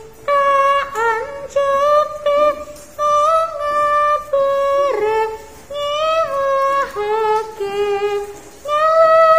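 A single high voice singing a slow melody in held notes that step up and down, phrase after phrase, with short breaks between them.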